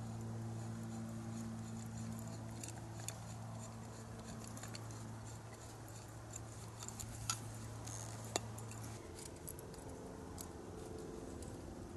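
Scattered small clicks and taps of metal and plastic stove parts being handled, as the MSR Whisperlite's pump and fuel bottle are fitted together. Underneath is a steady low background hum that changes to a higher drone about nine seconds in.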